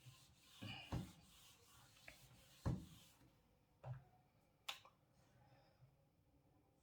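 Near silence broken by a few short, separate knocks and clicks, four or five in the first five seconds, like objects being handled and set down.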